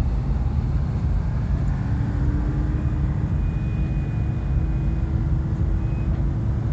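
Steady low engine rumble, with a faint whine that slowly rises in pitch from about two seconds in and a thin high tone heard briefly in the middle.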